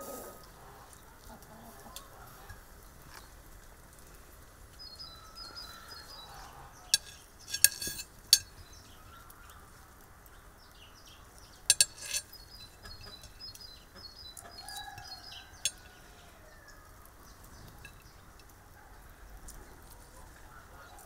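A metal skewer clicks and clinks sharply against a ceramic plate as cooked kebab pieces are pushed off it, in two clusters of clicks about four seconds apart. Chickens cluck in the background.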